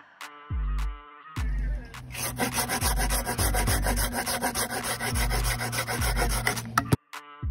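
Hand saw cutting through a moss-covered branch in back-and-forth strokes. The sawing starts about two seconds in and stops abruptly near the end. Electronic music with a deep bass beat plays underneath.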